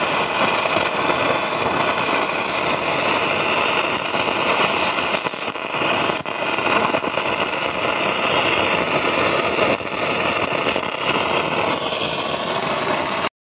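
Loud static hiss with scattered crackles from the speaker of a 1960s GE AM/FM tube-transistor hybrid table radio while its circuit board is probed. It cuts off suddenly near the end.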